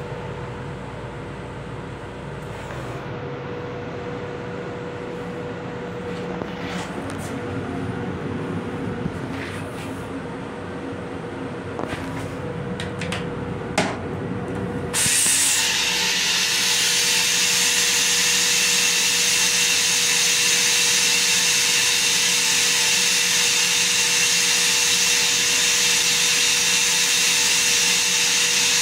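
M7 railcar toilet flushing: a loud, steady hissing rush starts abruptly about halfway through and stops suddenly at the end. Before it, the moving train's rumble and a steady hum, with a few clicks.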